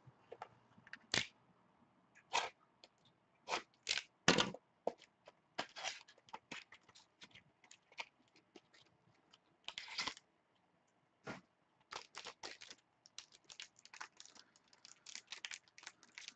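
Hands handling trading cards and clear plastic card holders: a run of irregular light clicks, snaps and crinkles, with a brief rustle about ten seconds in.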